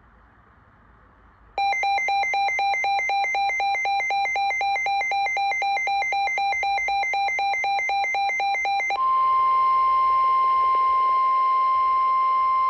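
Emergency weather alert tones. About a second and a half in, a loud electronic two-tone warble starts, switching pitch several times a second. At about 9 seconds it changes to a single steady, high alarm tone, the kind of long warning tone sent ahead of a National Weather Service severe thunderstorm warning broadcast.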